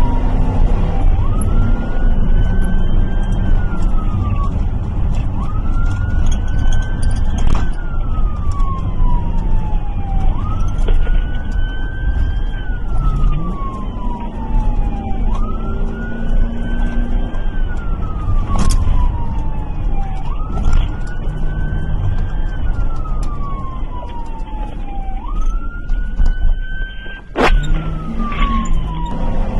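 Police car siren on a wail, each cycle climbing quickly and then falling slowly over about four seconds, again and again, over steady engine and road noise. Three sharp knocks cut through it, the last near the end.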